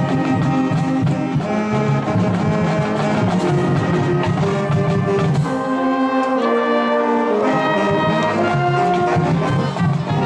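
Marching band brass section playing loud held chords, trumpets and trombones over sousaphones. About six seconds in the low brass drops out briefly, leaving only the higher chords, then the full band comes back in.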